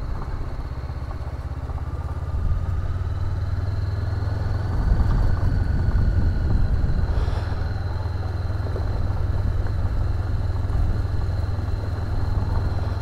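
Honda CB500X parallel-twin engine running at low speed as the motorcycle rolls slowly along a gravel lane, a steady low drone that picks up a little about two and five seconds in.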